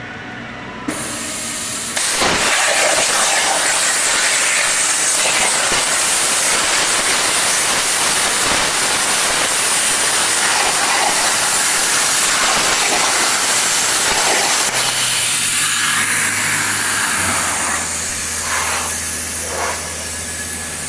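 Hypertherm MAXPRO200 plasma torch cutting 12 mm steel at 200 amps on oxygen over a water table. A gas hiss starts about a second in, then the arc fires about a second later into a loud, steady hissing roar. The cutting noise eases in the last few seconds while a low hum comes in.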